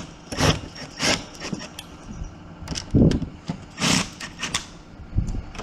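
A cordless drill driving the mounting screws of a door knob lockset in short bursts, about five in all, each ending in a clack as the screw seats.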